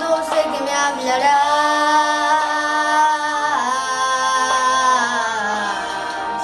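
A solo voice holding a long sung note without words, over the song's accompaniment. The pitch steps down about three and a half seconds in and again near the end.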